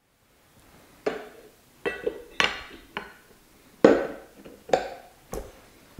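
Metal parts clinking and knocking as a round metal plate is handled and fitted onto the end of an electric motor: about eight sharp knocks at uneven intervals, starting about a second in.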